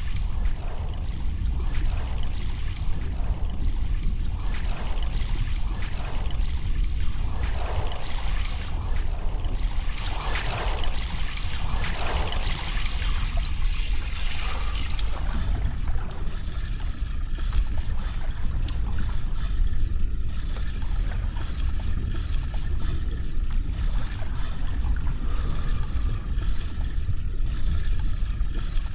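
Swimmer's front-crawl strokes splashing in the pool in a steady rhythm, loudest about ten to fifteen seconds in, then softer water movement, over a steady low rumble.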